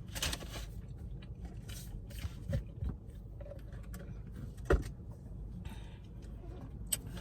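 Faint handling noises: a few scattered light clicks, knocks and scrapes, the clearest about two and a half and nearly five seconds in, over a low steady hum.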